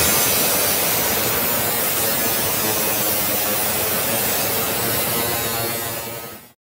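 Milwaukee angle grinder cutting into the corrugated steel panel of a shipping container, a steady grinding whine that throws sparks. It fades and stops abruptly just before the end.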